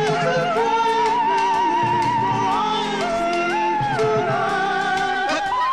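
Background music: a slow melody of long held notes with a wavering vibrato over a sustained accompaniment.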